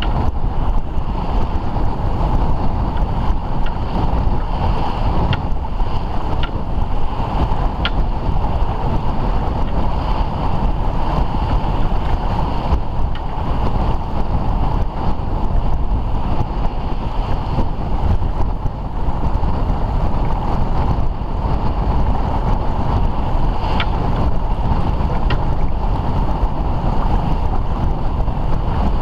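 Wind buffeting hard on the microphone over the rush and splash of water along a sailing yacht's hull as it sails heeled through choppy sea. A few faint ticks come through now and then.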